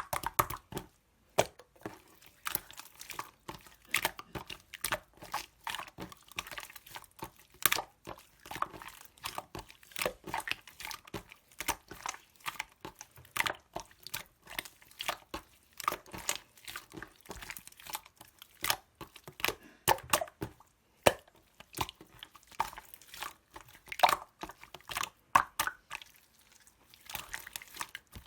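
Yellow slime squished and pressed by hand, giving a continuous irregular run of small sticky pops and crackles.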